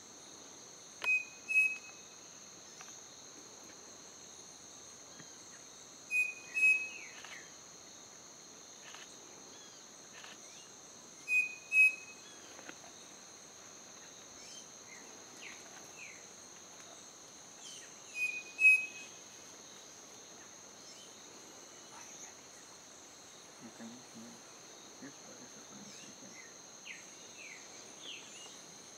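Striped cuckoo singing its two-note whistled song, the pair of clear notes repeated four times at intervals of about five to seven seconds.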